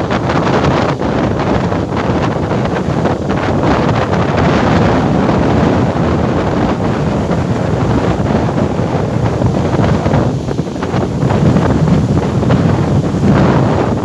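Big waves breaking and churning in heavy surf, with strong wind buffeting the microphone. The roar eases briefly about two-thirds of the way through, then swells again.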